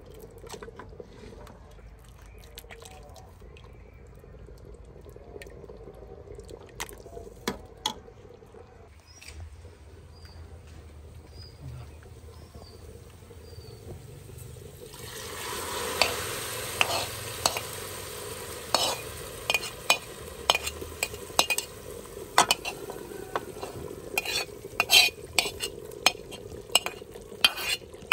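Metal spoon and ladle against an aluminium pressure cooker and a frying pan: quiet at first with occasional clinks. About halfway, a sizzle rises as hot fried onions go into the nihari broth. Then come many sharp clinks and knocks as the spoon scrapes the pan and the ladle stirs the pot.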